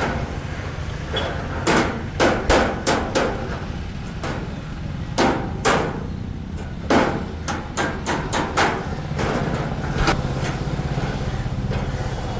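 Hammer striking iron or steel work, a dozen or more sharp blows at an uneven pace, some in quick runs, over a steady low hum.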